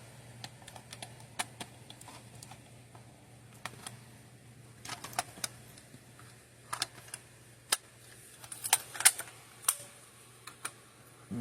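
Scattered light clicks and taps from hands handling a Notifier by Honeywell fire alarm pull station, with small clusters of sharper clicks about five, seven and nine seconds in, over a low steady hum.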